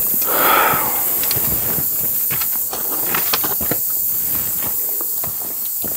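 Footsteps crunching and clicking on loose stones and dry ground, irregular over a steady high hiss, with a short hissing rush about half a second in.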